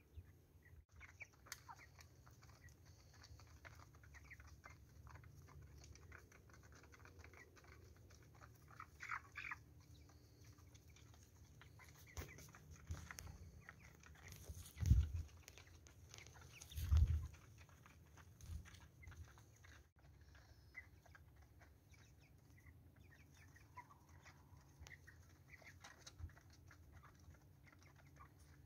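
Young chickens cheeping faintly and intermittently inside a covered coop. About halfway through come two dull thumps a couple of seconds apart, the loudest sounds.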